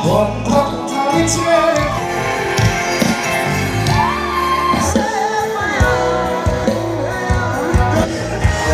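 Live concert music: a singer over an amplified band with a heavy, steady bass line.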